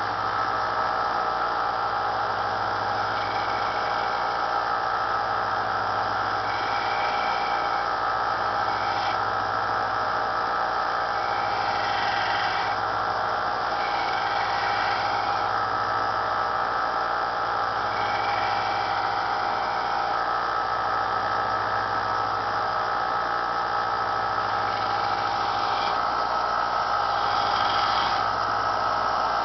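Small bench belt sander running steadily, with a steel knife blade pressed to the abrasive belt on and off, adding a higher grinding hiss in stretches of a second or two.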